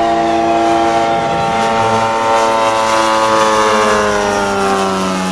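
The 3W twin-cylinder inline two-stroke engine of a giant-scale RC model plane running steadily in flight, its pitch rising slightly and then dropping after about four seconds as the plane passes close by.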